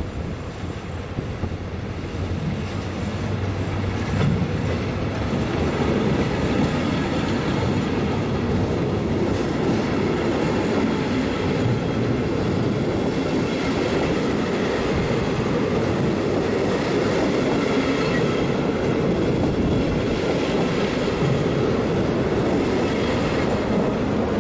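Regional passenger train running close past on the rails: a steady rumble of coach wheels with clatter and some wheel squeal, growing louder over the first few seconds. The train's class 223 diesel-electric locomotive is at the rear end.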